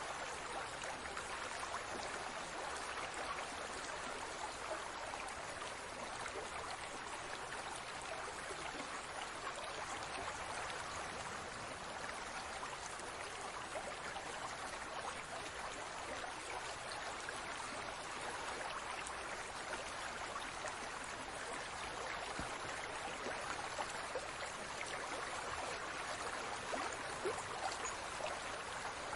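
Aquarium water bubbling and trickling steadily, with a dense patter of tiny bubble pops.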